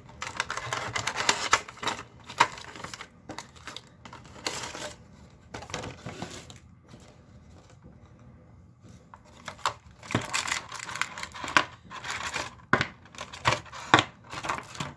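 Cardboard and plastic packaging of an eyeshadow kit being handled and opened: irregular rustling with sharp clicks and taps, quieter for a few seconds in the middle.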